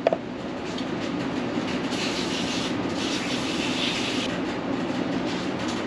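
Aerosol cleaner sprayed onto a metal kart part, a steady hissing rush that grows brighter for a couple of seconds in the middle.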